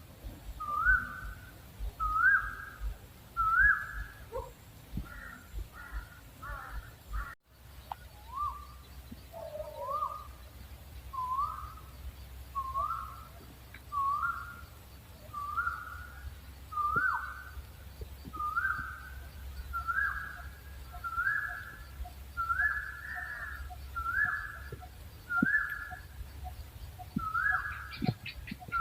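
Owl giving a repeated whistled call, one short note about every second and a half, each note rising and then dropping. The calls break off briefly about seven seconds in, then resume.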